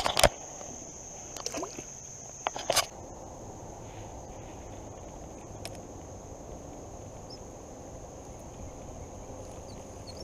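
Steady high-pitched chirring of crickets, with a few sharp knocks in the first three seconds, two in quick succession at the start and a pair near the three-second mark, over a low steady rush of fast-flowing creek water.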